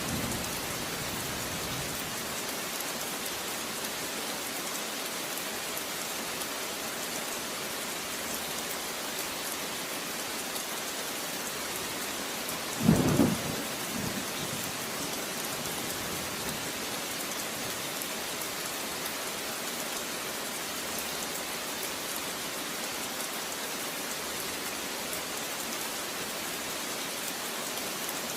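Steady rain falling, an even hiss throughout, with one short, loud burst of thunder about halfway through.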